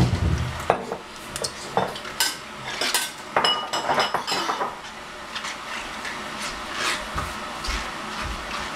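Small hard quinces being handled in a stainless steel bowl of water, clinking and knocking against the metal bowl in irregular clicks, with a dull thump at the start.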